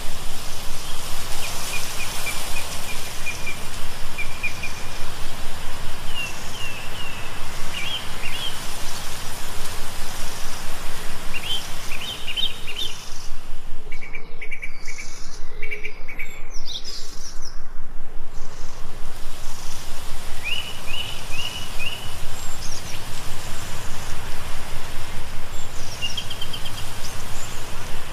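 Small birds singing in short, repeated chirping phrases over the steady rush of water flowing in a shallow stone channel.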